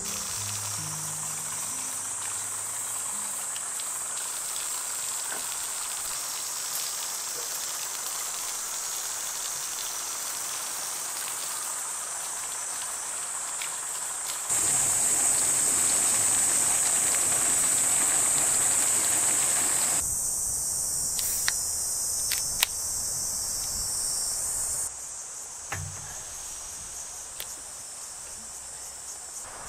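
Water running from an outdoor tap over vegetables being rinsed, louder for several seconds in the middle, over a steady high chirring of insects. Near the end come a few light knocks.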